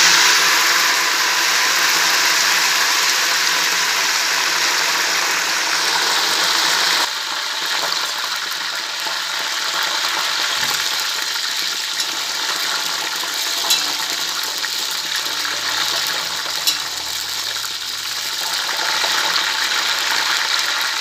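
Freshly washed mint leaves sizzling and spitting in hot oil in a large aluminium pot. The steady hiss is loudest at first and drops a little, suddenly, about seven seconds in. Two short clicks come later.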